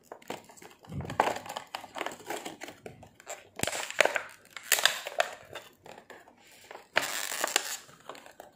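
Plastic toy packaging crinkling and crackling in irregular bursts as a capsule is worked out of it by hand, with a longer scrunch near the end.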